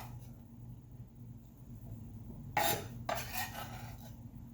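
A utensil scraping and clattering against a cutting board and mortar, twice in quick succession about two and a half seconds in, as chopped ginger and spring onions are moved into the mortar.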